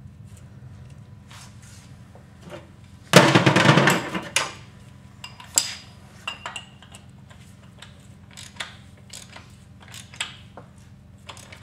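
Metal tool clatter while the outer spindle nut goes onto a Dana 30 front axle hub: a loud rattling clatter lasting about a second, about three seconds in, then scattered light metallic clicks and clinks, over a steady low hum.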